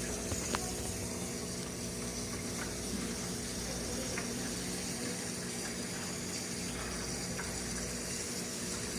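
Aquarium filter running: steady splashing and trickling water over a low, even motor hum, with a few faint ticks.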